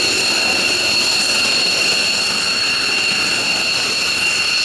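F-15J fighter jet engines running at ground idle: a steady high whine over a constant rush of jet noise.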